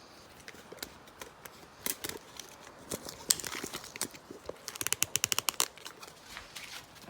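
Handling clicks and knocks while a tape measure is fetched, then a fast run of about a dozen even clicks near the end as the tape measure's steel blade slides out to measure tire tread.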